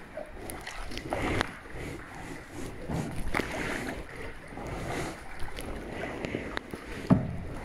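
Kayak paddle strokes in calm water, a swell of splashing about every two seconds, with a sharp knock about seven seconds in.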